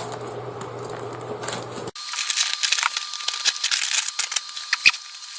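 A low steady hum that cuts off abruptly about two seconds in, followed by dense crinkling and crackling, like packaging being handled and opened.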